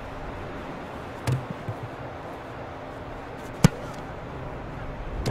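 A place-kicker's foot striking a football off the grass: one sharp, loud kick about three and a half seconds in, with a softer thud about a second in, over steady outdoor background noise.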